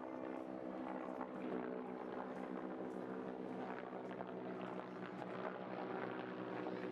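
A steady machine hum with a stack of even overtones, unchanging in pitch, with faint scattered ticks over it.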